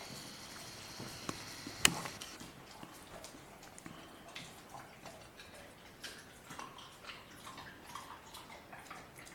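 German Shepherd puppy chewing raw food: irregular wet clicks and crunches, with one sharp crack a little under two seconds in.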